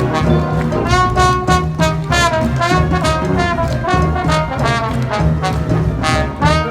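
A high school wind band playing a lively number, with brass (trumpets and trombones) carrying the melody over a steady beat from bass and drums.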